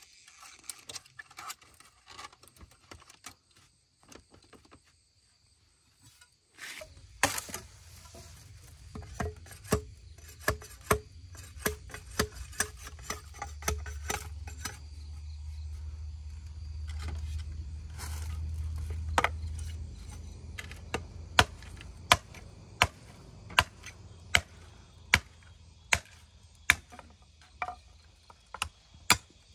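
A hand tool striking wood or bamboo again and again, chopping or hammering, settling into steady blows about one and a half a second in the second half, over a low rumble. Insects buzz faintly in the first few seconds.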